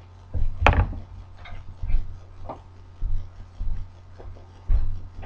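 A sharp knock as a person gets up from a wooden chair, then dull, irregular thumps of footsteps walking away, over a steady low electrical hum.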